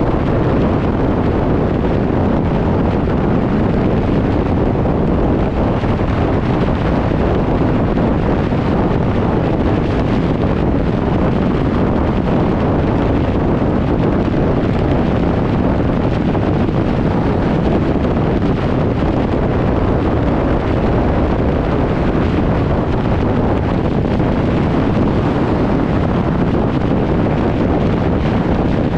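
Loud, steady wind rushing over the microphone of a camera on a fire engine's front bumper at highway speed, mixed with the road and tyre noise of the moving truck.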